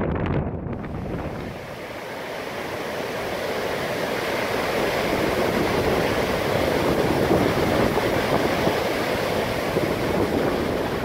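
A waterfall rushing steadily, a full, even sound of falling water that builds over the first few seconds and then holds. Wind gusts on the microphone fade out within the first second.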